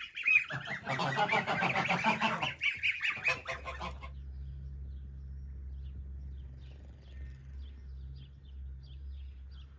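A crowded flock of domestic goslings and geese calling, many high peeping and honking calls at once. About four seconds in it cuts off suddenly, leaving a low steady hum with faint short high chirps.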